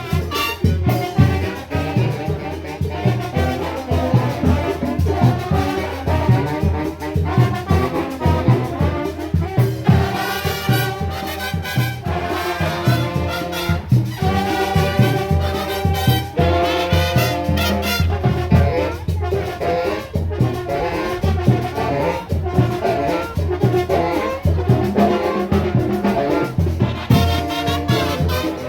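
Latin marching band playing live, with brass carrying the melody over a steady drum beat.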